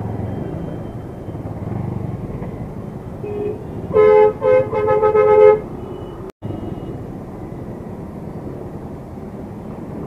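A vehicle horn honks several times in quick succession about four seconds in, loud over the steady rumble of engines in a traffic jam.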